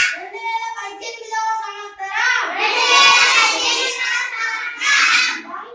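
Children singing in Konkani: two sung phrases with held notes and a short break about two seconds in.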